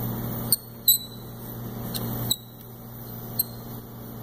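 Bunsen burner's gas flame hissing while its metal air-intake collar is turned by hand to let in more air for a blue flame. The hiss drops abruptly about half a second in and again after about two seconds, and a few short squeaky clicks come from the metal parts.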